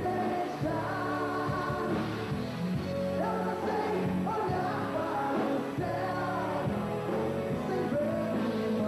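Live pop-rock band performance with a lead voice singing over the band.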